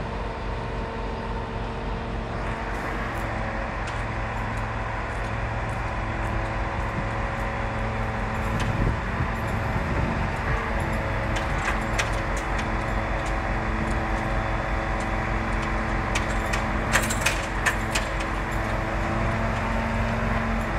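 Aerial-platform fire truck's engine and hydraulic system running steadily while the boom moves the basket, a steady hum with several held tones that grows somewhat louder along the way. A few sharp metallic clicks and knocks come near the end.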